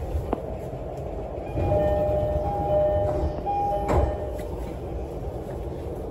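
Low rumble of an E231-series commuter train standing at a platform, heard from inside the car. For about two seconds, steady two-note electronic chime tones sound, then a sharp thump comes about four seconds in. The tones and thump fit the door-closing chime and the doors shutting.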